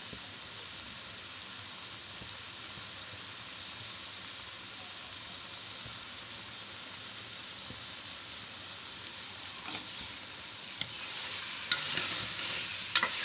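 Egg, onion and green pepper mixture sizzling steadily in a metal karahi. About ten seconds in, a steel spoon starts stirring it, scraping the pan and knocking against it with a few sharp clinks near the end.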